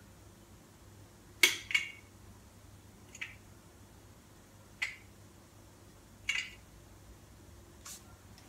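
A spoon clinking against a glass jar, about six short, sharp taps roughly one to one and a half seconds apart, as tablespoons of LSA are measured into the jar. The loudest is a quick double tap about a second and a half in.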